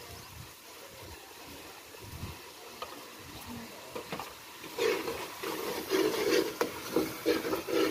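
Dry twigs and brushwood being handled and broken for a wood-fired clay stove: rustling, scraping and snapping, faint at first and louder and more frequent from about five seconds in.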